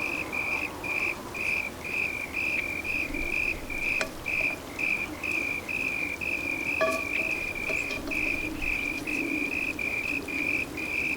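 A cricket chirping steadily, about three short, high chirps a second.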